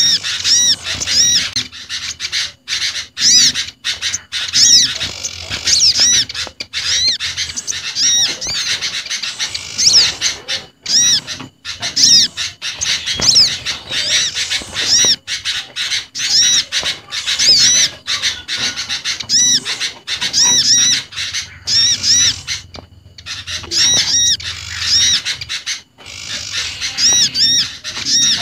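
Bird-lure recording of small garden birds calling together: quick series of short, high chattering notes with brief pauses, mixing olive-backed sunbird, prinia and agitated sooty-headed bulbul calls, played to draw small birds in.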